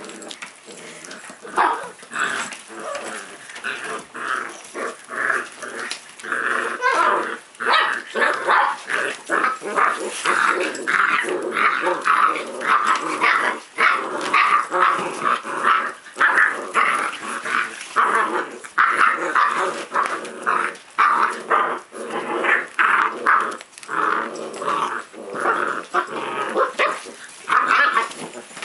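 A litter of puppies play-fighting, with a rapid, nearly unbroken string of short high yips, barks and growls that starts up about a second and a half in.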